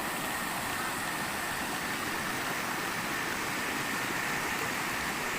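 Steady rushing noise of a flowing river, with a faint steady high tone over it; it cuts off abruptly at the end.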